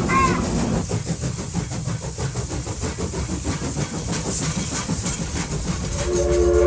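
A heritage railway train running, a steady rushing noise with fast rhythmic pulses. Near the end the train sounds a steady multi-note warning chord.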